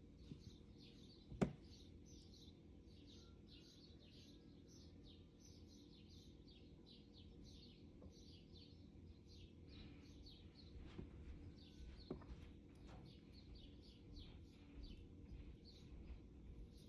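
Faint small-bird chirping, short chirps repeated two to three times a second throughout, with a single sharp click about a second and a half in and a few softer knocks later.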